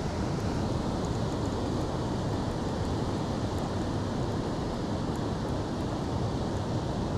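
Wind buffeting the microphone: a steady low rumbling noise with no distinct events.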